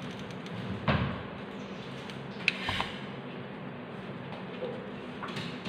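Light knocks of craft materials being handled on a tabletop: a soft knock about a second in and a sharper click with a short thud halfway through, over a steady low hum.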